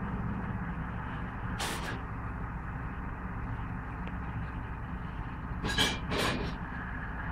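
Steady low engine rumble of heavy road-works machinery, with a short hiss about two seconds in and two more close together near the end.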